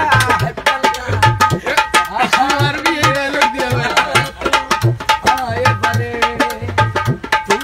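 A male voice singing over a dholak played by hand: the two-headed barrel drum keeps a steady beat of deep bass strokes under sharp slaps.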